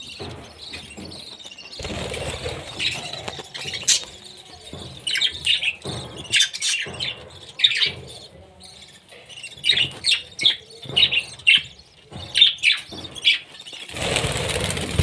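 Budgerigars chirping in quick runs of short, high calls, with two spells of rustling, about two seconds in and near the end.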